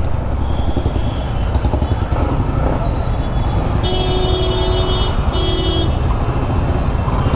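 Motorcycle engine running with a steady low rumble while moving slowly through dense traffic. About four seconds in, a vehicle horn honks twice, a longer blast then a short one.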